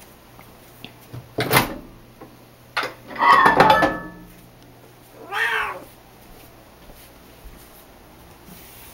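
Siamese cat meowing three times, a second or two apart: a harsh first cry, a long call, then a shorter call that rises and falls in pitch.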